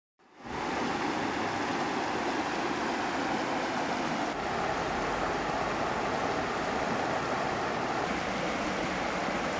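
River water rushing over shallow rocky rapids, a steady rush that fades in about half a second in.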